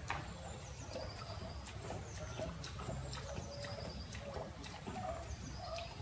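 Lioness lapping water from a pool: irregular small wet clicks and splashes. Small birds chirp in the background over a low steady hum.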